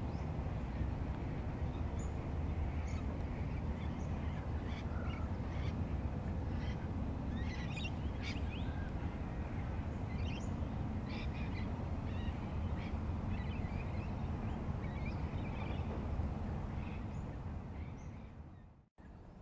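Many short, high chirps from small birds in the background over a steady low rumble. The sound fades and cuts out briefly just before the end.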